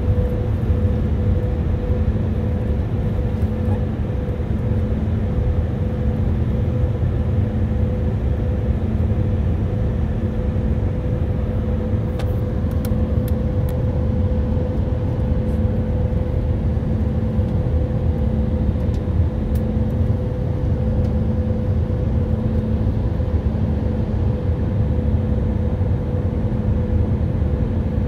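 Steady cabin noise of an Airbus A319-132 climbing: rushing air and the drone of its IAE V2500 turbofans. It carries a steady hum and a lower tone that swells and fades every second or two.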